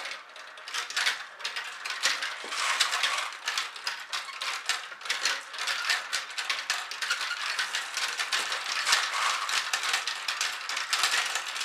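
Many marbles clattering down a plastic MarbleWorks marble run: a dense, continuous stream of clicks and clacks as they hit the tubes and chutes.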